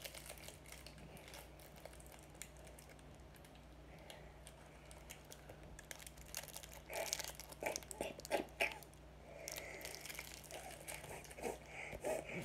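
Plastic wrapper of a roll of Smarties candy crinkling and crackling as it is handled. It is faint at first, with a dense run of sharp crackles about seven seconds in.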